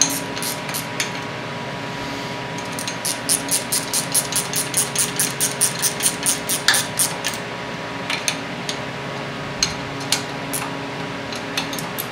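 A wrench ratcheting in quick runs of evenly spaced clicks, about three or four a second, as the water pump housing bolts are run down into a Chrysler 383 big-block. The clicks are busiest in the middle, with a few scattered ones later.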